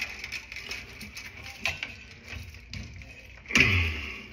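Light clicks and rustling of hand work on electrical cable and tools, with a louder scuffing noise about three and a half seconds in.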